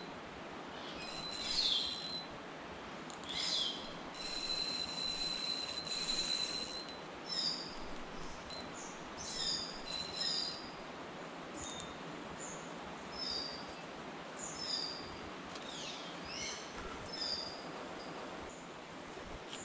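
Birds calling in waterside scrub: repeated short, high chirps and whistled notes, with one long held high note early on, over a steady background hiss.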